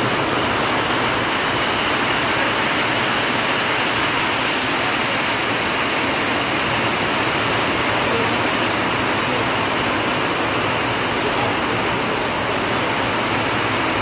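Steady, even rushing hiss that holds at one level throughout, with no distinct events.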